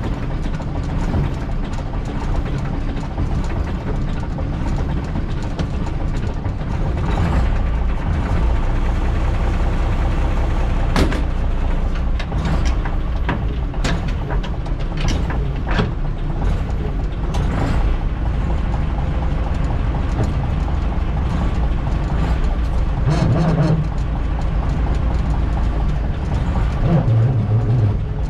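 Leyland PS1/1 bus's diesel engine running steadily at low speed while the bus is manoeuvred, heard from inside the cab. A series of sharp clicks and knocks comes through about halfway through.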